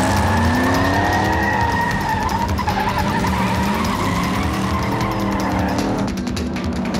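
Pontiac GTO muscle car peeling away hard from a standstill: the tyres squeal steadily with wheelspin while the engine revs climb and fall twice. The squeal fades about six seconds in, and background music plays underneath.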